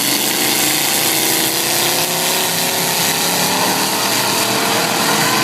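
Demolition derby cars' engines running hard, several at once, one revving with a slow rise in pitch over a dense background of engine and exhaust noise.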